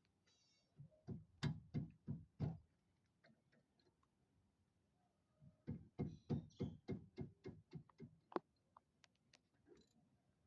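Wrench working the lower brake caliper bolt loose: two runs of sharp clicks, about five near the start, then a faster run of about a dozen near the middle.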